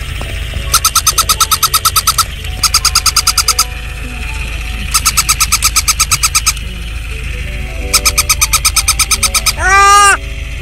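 Electronic plush toy puppy yapping in bursts of rapid high chirps, each burst about a second and a half, four times, then a loud rising-and-falling squeal near the end. Soft background music runs underneath.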